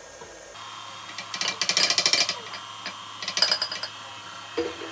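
Electric mixer switched on about half a second in and running at half speed, mixing flour into cookie dough, with two spells of loud rattling.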